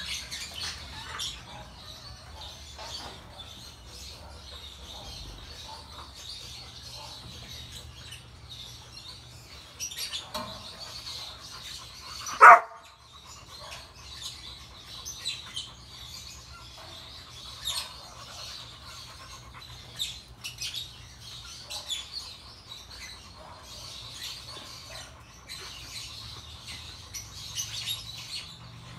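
One loud dog bark about twelve seconds in, over steady chirping of small birds.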